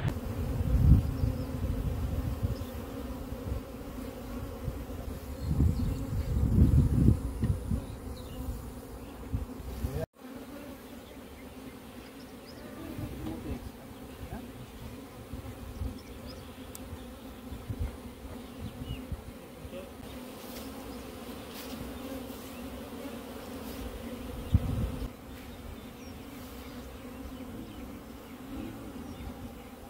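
Honeybees buzzing around their hive boxes, a steady hum throughout. Low rumbles on the microphone come through in the first several seconds and again briefly about 25 seconds in.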